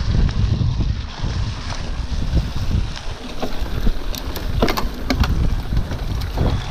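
Wind on the microphone of a mountain-bike action camera and the rumble of a Specialized Epic Comp full-suspension mountain bike riding fast over a bumpy grass track. Scattered rattles and knocks from the bike come thickest past the middle.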